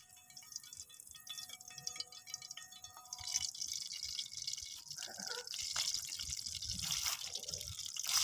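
Hot oil in a frying pan crackling faintly, then sizzling louder from about three seconds in as semolina is tipped into it and starts to fry.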